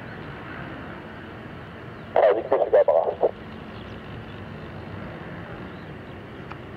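A brief garbled burst from an airband radio scanner about two seconds in, lasting about a second, over a steady background of the Boeing 737-800's jet engines at low power.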